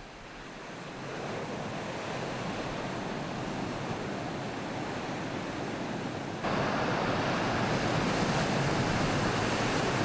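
Large ocean waves breaking, a continuous rush of surf and churning whitewater. It grows louder about a second in and then jumps abruptly louder at about six and a half seconds.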